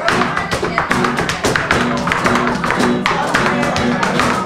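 Live flamenco music: two acoustic flamenco guitars playing, with a dense run of sharp percussive taps over them.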